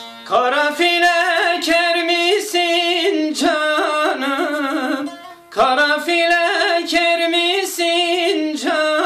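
A man singing a Turkish folk melody in long, wavering phrases over a strummed bağlama (saz), with a brief break between two phrases about five seconds in.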